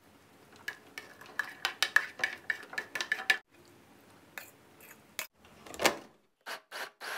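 Boiled shallots, garlic, fingerroot and dried chillies tumbling into the clear plastic bowl of an electric food chopper: a rapid clatter of many light knocks against the plastic. Then a fork scraping fish flesh off a metal bowl, a few scattered clicks, and a louder knock as the chopper's lid is set on.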